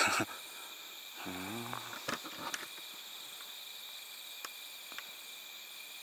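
Chorus of night insects chirping steadily in several thin, high, unbroken tones. A man's short low murmur comes about a second in, and a few faint ticks follow later.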